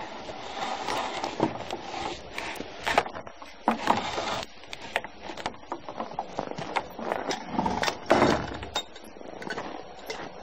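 Clinks, knocks and rustling scrapes from a draft-horse harness and its chains being handled up close during hitching, with louder scraping rustles about four and eight seconds in.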